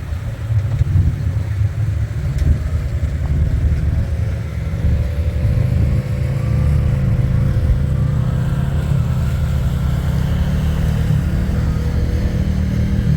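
Off-road vehicle engine running steadily at low speed, with a faint whine that rises a little in pitch partway through.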